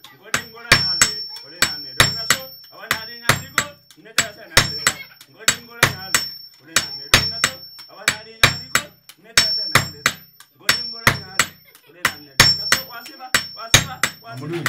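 Hand hammer and sledgehammer striking red-hot scrap metal on a small anvil in turn, a fast steady rhythm of about three blows a second, each blow with a high metallic ring. The metal is being forged into a bell for dundun drums.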